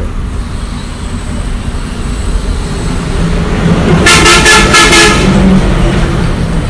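Road traffic rumbling steadily, with a vehicle horn sounding in a quick run of toots about four seconds in.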